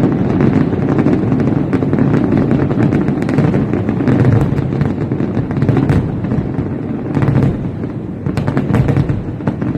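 Fireworks going off in a dense, continuous barrage of rapid bangs and crackles, with a few louder bangs near the end.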